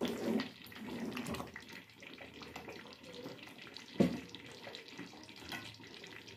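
Wooden spoon stirring thick curry gravy in an aluminium pot, a wet sloshing and scraping, then the gravy bubbling. There is a single knock about four seconds in.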